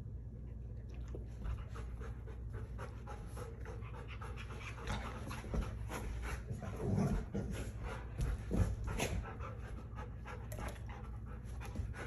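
Golden retrievers panting rapidly as they wrestle in play, with louder bursts about five to nine seconds in.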